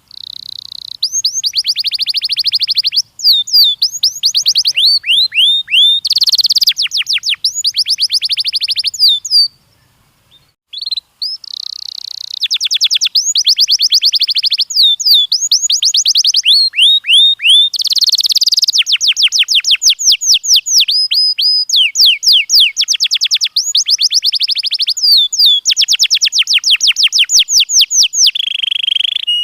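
Canary singing: long phrases of rapid trills and fast falling whistled notes, with a brief pause about ten seconds in.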